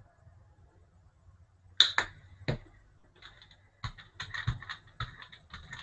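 A brayer rolling through wet acrylic paint on a Gelli gel printing plate. It gives a few sharp clicks about two seconds in, then from about four seconds a quick, sticky crackling of ticks.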